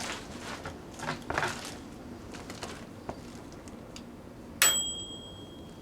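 Irregular crackling and popping from Christmas lights arcing and burning inside a running microwave oven, then about four and a half seconds in a sharp click and a high, steady electronic beep lasting about a second.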